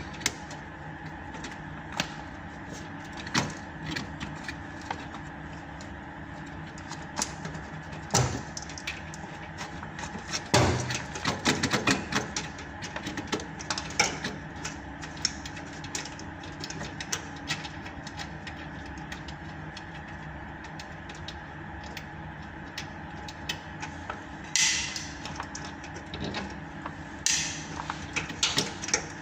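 Scattered clicks and knocks of hands and tools working on a machine, busiest about a third of the way in, over a steady hum. There are two short hissing bursts near the end.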